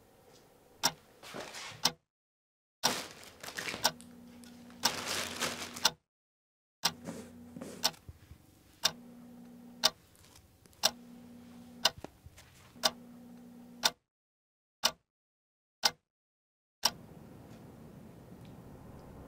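A clock ticking with sharp ticks about one a second. Between some ticks there is dead silence; under others there is softer scraping and rustling. The ticking stops about 17 seconds in, and a low steady hum rises near the end.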